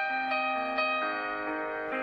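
Background music: a slow, gentle keyboard melody, its notes struck a few at a time and left ringing.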